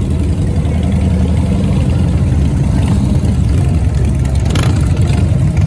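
Motorcycle engine running steadily with a deep, even low rumble.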